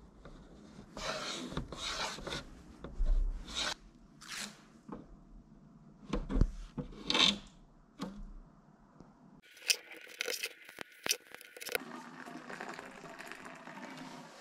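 Thin plastic striping tape being pulled off the roll and pressed and rubbed down onto the wooden deck of a hollow wood surfboard, in short tearing and rubbing strokes a second or two apart.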